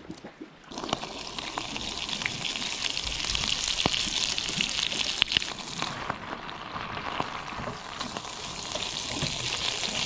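Squid and garlic frying in olive oil in a pan, sizzling with scattered crackles and pops. The sizzle starts suddenly about a second in, eases somewhat after the middle and builds again near the end.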